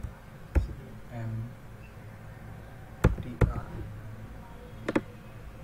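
Computer keyboard keys pressed four separate times while a short file name is typed: one sharp click about half a second in, a quick pair around three seconds in, and one more near five seconds.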